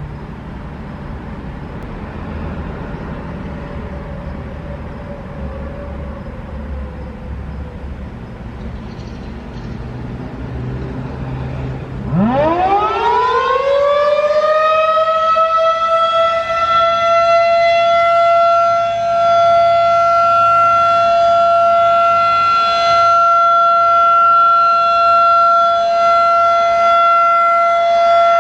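A low background rumble, then about twelve seconds in a Federal Signal 2001-DC electromechanical warning siren winds up, its pitch rising quickly and then holding one steady tone. This is the siren's steady Alert signal during a test.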